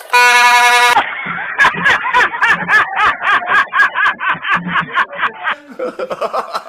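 Vehicle horn blast that cuts off sharply about a second in. It is followed by a fast string of short warbling, laugh-like sounds, several a second, which fade out near the end.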